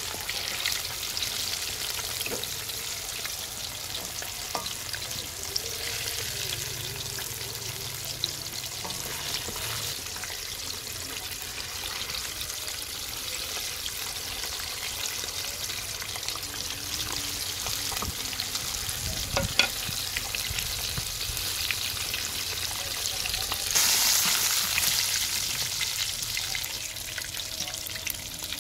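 Besan-battered fish pieces deep-frying in hot oil in a steel pot: a steady sizzle, with a few light knocks as the pieces are turned. A few seconds before the end the sizzle briefly grows louder.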